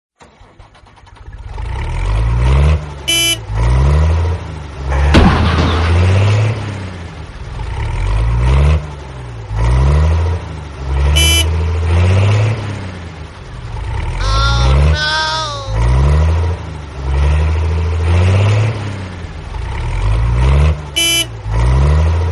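Tractor engine sound effect: a low rumble that pulses about every two seconds, with three short horn toots at about three seconds in, eleven seconds in, and near the end.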